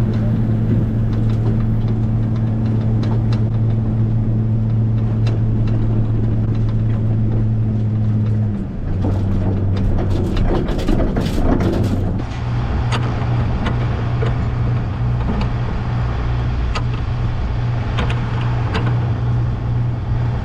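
Engine running at a steady speed with a constant hum, dropping in pitch about eight seconds in and settling at a new steady speed a few seconds later, with a few clicks and knocks in between.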